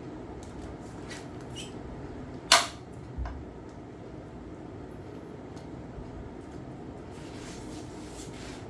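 A sharp knock about two and a half seconds in and a softer one shortly after, over a steady low hum.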